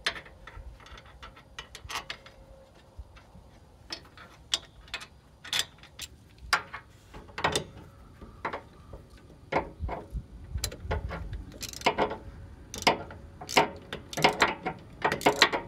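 Socket ratchet clicking in short, irregular runs, with metal clinks, as the rear wheel hub bolts are threaded in and run down. The clicks get busier near the end.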